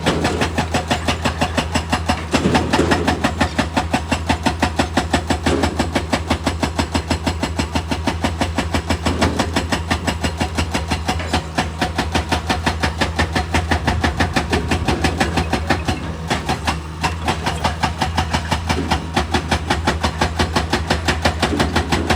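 Heavy diesel machinery running with a steady low drone and fast, even knocking or hammering, about five strikes a second.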